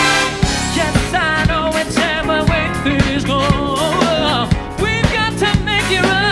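A live big band with a horn section and drum kit plays a funk-jazz tune. A male vocalist sings a wavering, vibrato-laden line over it, with drum hits about twice a second.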